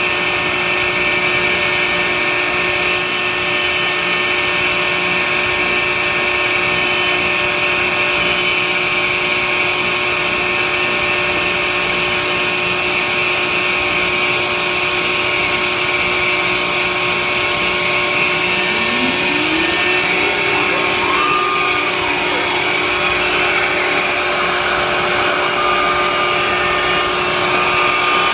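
1999-built CNC router's vacuum equipment running with a steady loud rush and fixed hums. About two-thirds of the way through, a rising whine climbs and then holds steady as the router spindle spins up to speed.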